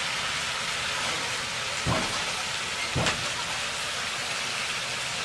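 Curry bubbling and sizzling in a cast-iron kadai over a wood fire: a steady hiss with two louder pops about two and three seconds in.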